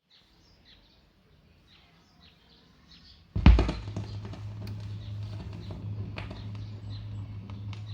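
Faint bird chirps, then about three and a half seconds in a loud thump as the Lenco L85 turntable's stylus comes down on the record, followed by a steady low hum with crackle and clicks from the lead-in groove.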